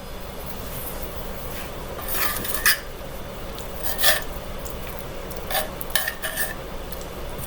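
A metal spoon clinking against dishes: a handful of sharp clinks, each with a brief ring, scattered over a few seconds. The loudest come about two and a half and four seconds in.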